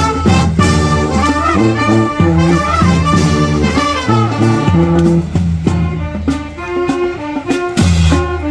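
Street brass band playing: several horn parts over a low bass line, with drum hits.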